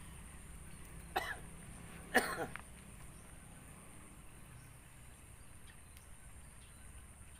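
Two short throat sounds from a person, like coughs, about a second apart, the second one louder, over a faint steady low rumble.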